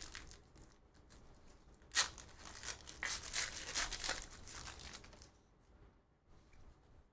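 Trading-card pack wrapper being torn open and crinkled in several rips, the sharpest about two seconds in, dying down after about five seconds.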